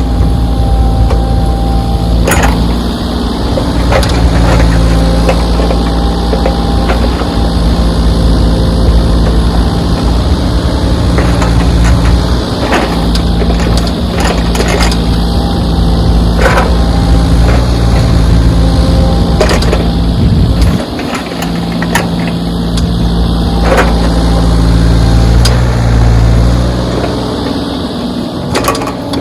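Backhoe's diesel engine running steadily as it works, its note dropping and rising a few times, with scattered sharp knocks and clanks from the machine.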